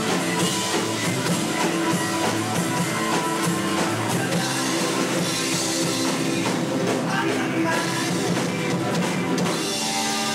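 Rock band playing live: electric guitar, acoustic guitar, bass guitar and drum kit.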